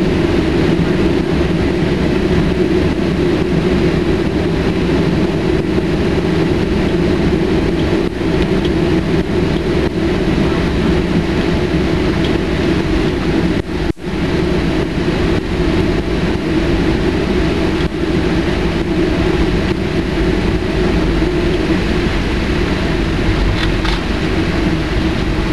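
Steady cabin noise of a jet airliner taxiing: a constant engine drone with a strong low hum, heard from inside the cabin. It dips briefly about halfway through.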